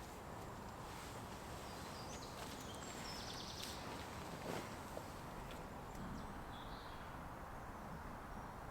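Small birds chirping now and then, in short high calls, over a steady outdoor background hiss.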